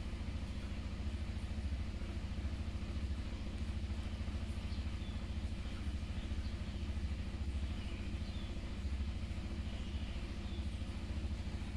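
A steady low motor hum with an even throb, and a few faint high chirps now and then.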